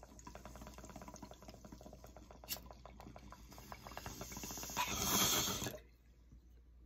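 Water bubbling in an 18-inch glass beaker bong as smoke is drawn through it: a fast, steady bubbling that grows louder, ending about five seconds in with a brief louder rush that cuts off suddenly.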